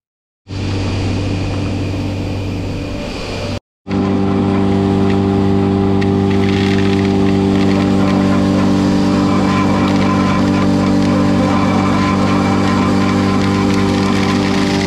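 Grain dryer running on corn: a loud, steady machine hum with a strong low drone. It starts about half a second in and drops out for a moment just before four seconds in.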